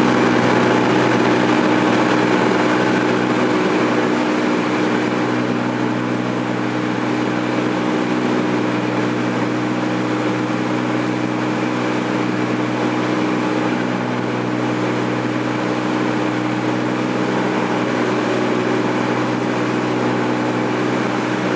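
Cessna 206's piston engine and propeller droning steadily, heard from inside the cabin on approach, easing slightly in loudness over the first few seconds.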